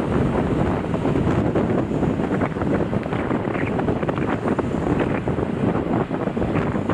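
Strong wind buffeting the microphone: a loud, dense rush with constant irregular crackling gusts that starts suddenly and does not let up.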